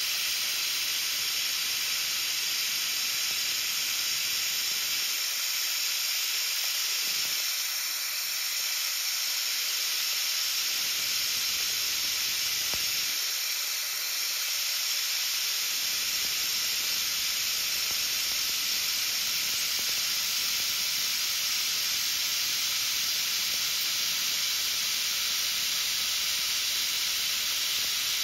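CNC milling machine finish-milling a pocket in a metal block, with a steady hiss from the blast nozzle aimed at the end mill covering the cutting noise.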